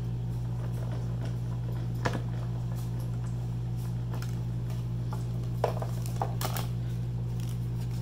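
Stampin' Up Stamp, Cut & Emboss machine, hand-cranked, quietly rolling acrylic cutting plates through, then a few light clicks and taps of the plastic plates being handled, over a steady low background hum.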